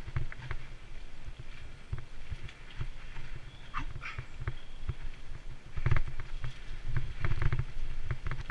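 Mountain bike ridden fast over a rough dirt trail: the bike rattles and knocks over bumps and roots while wind rumbles on the helmet camera's microphone. There is a short squeak about four seconds in, and the rattling is busiest and loudest near the end.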